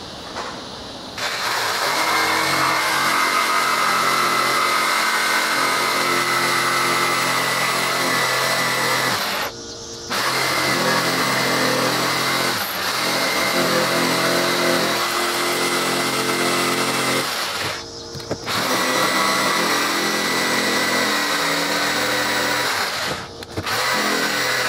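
Corded electric jigsaw cutting a curve through a thick weathered wooden board. It starts about a second in and runs in long, steady stretches, stopping briefly about ten seconds in, again near eighteen seconds, and once more shortly before the end.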